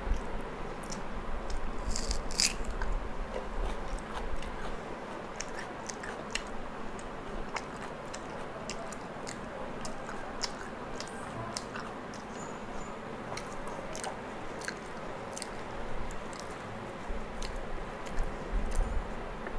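A person chewing and biting rumali roti close to a lapel microphone: many small, sharp mouth clicks and a few crunchy bites, the loudest about two seconds in.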